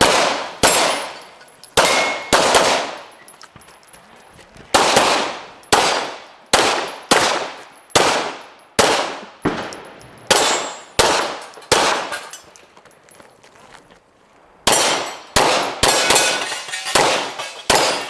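Pistol shots fired in a rapid string, more than twenty in all, roughly one every half second, each trailing off in echo. There is a pause of about two seconds after about twelve seconds, then a faster run of shots to the end.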